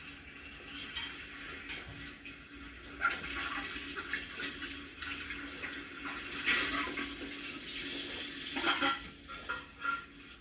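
Water running from a kitchen tap into the sink while dishes are washed by hand, swelling and easing as the flow is interrupted, with a few short clinks of dishware.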